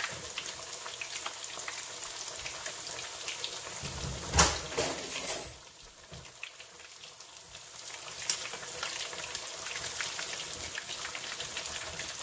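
Breaded ground-chicken patties deep-frying in hot oil, a steady crackle and sizzle of many fine pops. A few loud knocks come about four to five seconds in, and the sizzle eases off briefly after them.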